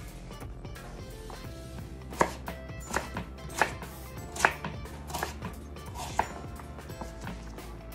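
A large kitchen knife chopping peeled raw potatoes into cubes on a wooden cutting board. The blade knocks the board in uneven strokes about once a second, with the strongest strokes from about two seconds in.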